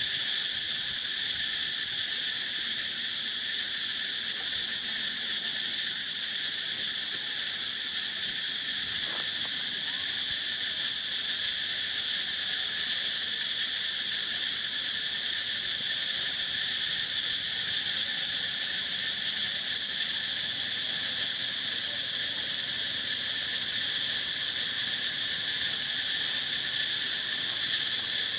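Steady, unbroken chorus of insects, a high shrill drone with a weaker, lower band beneath it.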